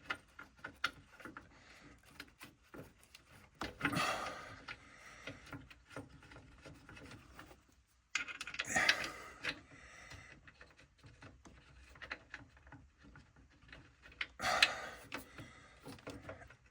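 Small clicks, taps and rubbing of metal parts as a bolt is offered up to the filter housing and rivnut under the vehicle. Three louder scrapes are spread through it.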